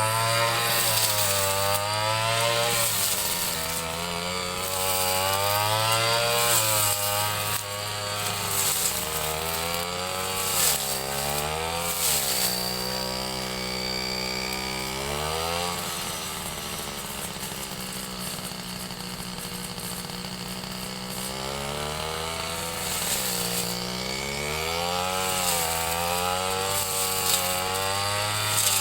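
Ryu 30.5 cc two-stroke brush cutter running while cutting grass, its engine pitch swinging up and down every second or two with the throttle. Through the middle it drops to a lower, steadier pitch, then picks up again near the end.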